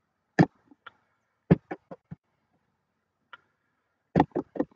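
Sharp single clicks of a computer mouse button, spaced irregularly, then a quick run of several clicks near the end.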